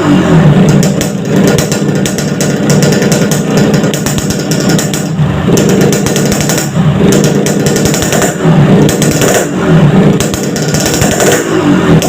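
Yamaha RX-King's single-cylinder two-stroke engine revving through a hollowed-out, reworked exhaust, the revs rising and falling several times with a rapid, rattly firing note. The muffler's insides have been rebuilt for the crisp, growling "garing ngorok" tone.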